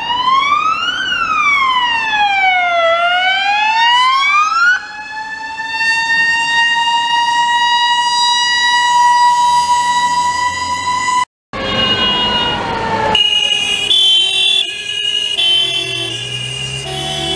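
Police car sirens. First a wailing siren sweeps up and down twice. Then a siren holds one long, slowly rising wail. After a sudden break, a tone falls away and a choppy two-tone hi-lo siren alternates.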